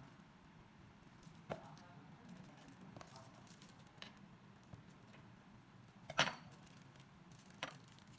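Kitchenware being handled during food preparation: a few separate light clicks and knocks, the loudest about six seconds in.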